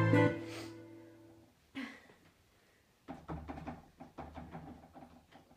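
Electric keyboard chord struck once and left to fade over about a second and a half. From about halfway in come a run of soft clicks and knocks.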